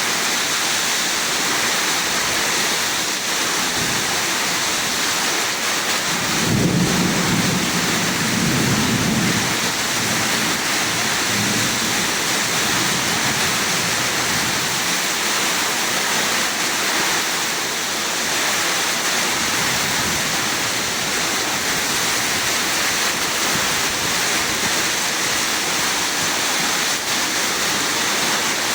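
Heavy rain pouring steadily in a summer thunderstorm, with a roll of thunder rumbling for a few seconds starting about six seconds in.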